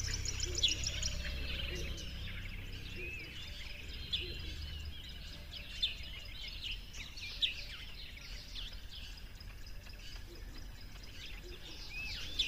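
Several small birds chirping in short, quick, scattered calls, over a low hum that fades out in the first few seconds.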